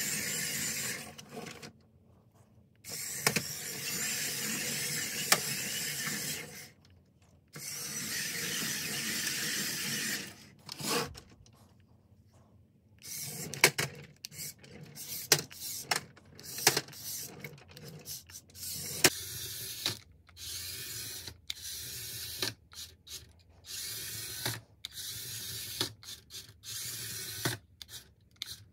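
Little Tikes Tire Twister RC car's electric drive motors whirring through their plastic gears, first in three runs of a few seconds each, then in many short stop-start spurts broken by sharp clicks as the remote's buttons are pressed and released.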